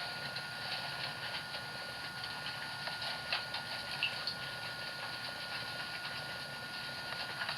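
Bath water running and splashing, with scattered small splashes and clicks as a hen is washed in it.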